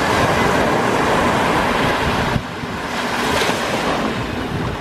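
Mediterranean surf washing onto the shore, a steady hiss of breaking water. It drops off suddenly about two and a half seconds in as a wave spends itself, then a fresh wash builds.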